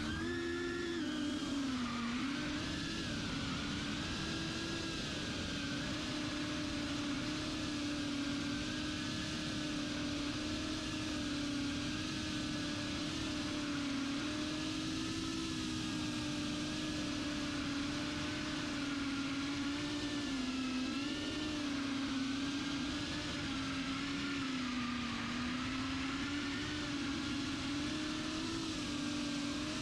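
Small FPV quadcopter (Reptile Cloud 149HD) in flight: its brushless motors and propellers give a continuous buzzing whine whose pitch rises and falls slightly as the throttle changes.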